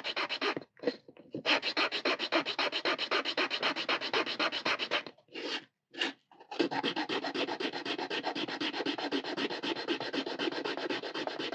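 Small hand file rasping in quick, even back-and-forth strokes on an HO scale hopper wagon kit, filing off the raised lip around the bogie mounting hole. The strokes pause briefly twice.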